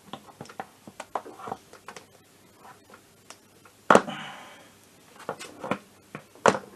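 Plastic air box of an MBK Spirit scooter engine being pushed and worked into place: a run of light plastic clicks and knocks, with one sharp, louder knock about four seconds in followed by a short scraping rub.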